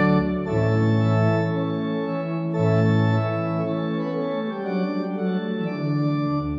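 Organ music: full sustained chords over a held bass, moving to a new chord every second or so.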